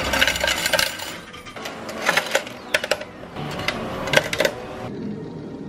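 Coins clinking and rattling in the metal coin slot of a coin-operated karaoke booth as they are fed in, a run of sharp metallic clicks that stops about four and a half seconds in.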